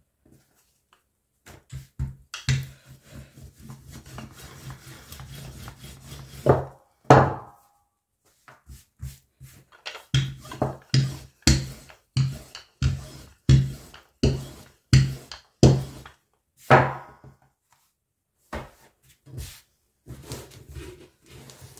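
Handled wooden rolling pin worked back and forth over dough on a wooden worktop: a rumbling roll with knocks, then an even run of strokes about one every 0.7 seconds, with a couple of louder knocks.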